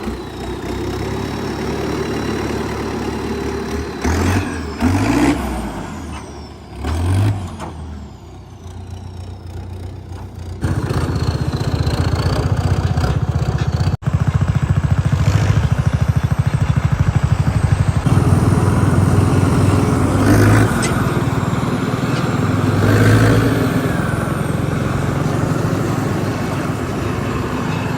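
Tractor diesel engine running while the tractor pulls a hitched cart along the road, revving up a few times early on, then a louder, steady drone from about ten seconds in.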